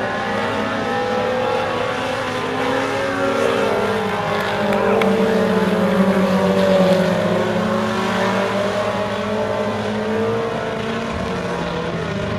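Several Super Stock four-cylinder dirt-track race cars racing, their engines revving with pitch rising and falling as they lap. One car passes close about halfway through, and it is loudest around six seconds in.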